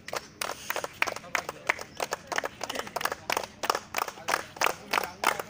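A small group of people clapping their hands, several sharp claps a second in an uneven rhythm.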